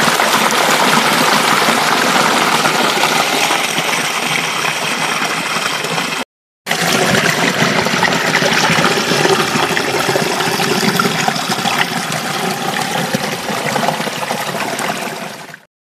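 Shallow creek water running and splashing down small cascades between rocks, a steady rushing noise. It cuts out completely for a moment about six seconds in.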